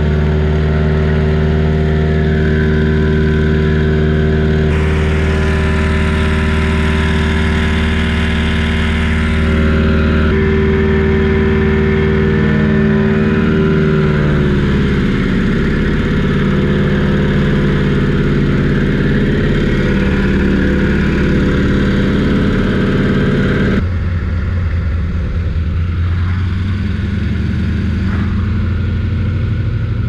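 Single-engine floatplane's piston engine and propeller running steadily, heard from inside the cockpit. The engine note drops in pitch about halfway through, and the sound changes abruptly a few times.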